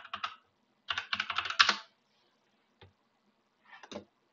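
Computer keyboard typing: two quick bursts of keystrokes in the first two seconds, then a single click and a short flurry of keys near the end.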